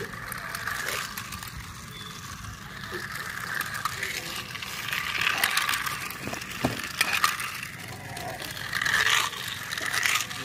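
A small battery-powered toy car running on a bendable plastic track, its motor whining steadily, with irregular clicks and rattles from the plastic track pieces.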